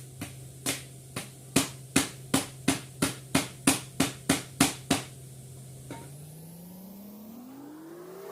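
About a dozen sharp knocks, two or three a second, over a steady low hum. Then, about six seconds in, a motor starts winding up, its whine rising steadily in pitch as it spins up.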